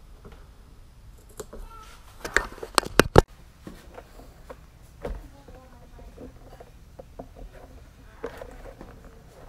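Hand-work sounds from trimming vinyl over a door panel's speaker opening: a quick cluster of sharp clicks and taps about two to three seconds in, then lighter scattered ticks and rustling.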